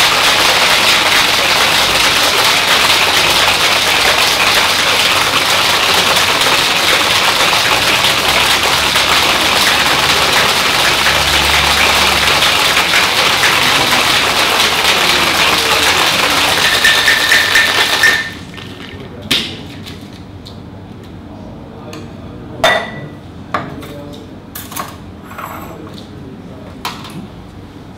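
Ice rattling hard inside a stainless steel cocktail shaker, shaken without pause for about eighteen seconds to chill and froth an egg-white and cream cocktail. The shaking then stops suddenly, and a few separate knocks and clinks follow as the shaker tins are handled on the counter.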